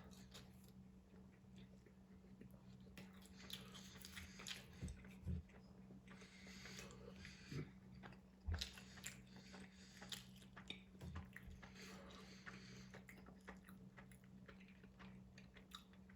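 A person chewing and biting into a sub sandwich close to the microphone: faint, irregular wet mouth clicks and crunches, over a steady low hum.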